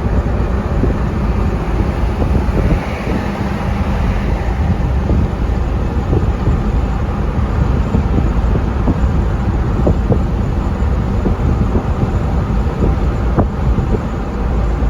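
A car driving, with steady road and wind noise that is strongest in the low rumble.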